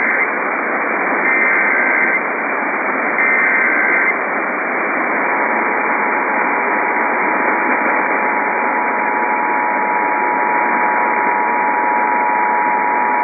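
Emergency Alert System test over a radio broadcast with heavy static hiss. First come the raspy digital header bursts: the tail of one, then two more about a second apart. About five seconds in, the steady two-tone EAS attention signal starts and is held. The header bursts and the attention tone are the start of an alert, here the Ohio statewide test.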